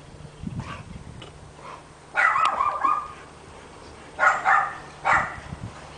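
A dog barking up a storm in the background: one longer bark about two seconds in, then two shorter barks near the end.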